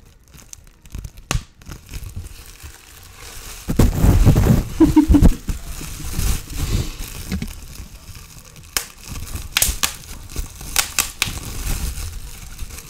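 Plastic packaging crinkled and crushed close to the microphone, ASMR-style, in irregular crackles. The handling is loudest about four seconds in, with sharp crackles later on.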